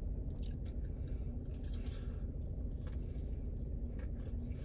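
A person chewing a mouthful of juicy fried chicken nugget, with a few short wet clicks from the mouth over a steady low hum.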